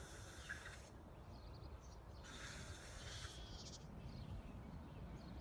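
Faint outdoor background noise: a low steady rumble, with a brief soft hiss a little past the middle.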